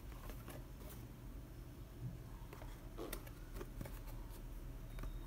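Faint rustles and light taps of hands handling and turning a cardboard box, a few scattered clicks with the most distinct around three seconds in.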